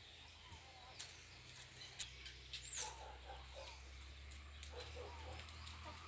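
Faint clucking of chickens in short repeated calls, with a high bird chirp about three seconds in and a few light clicks.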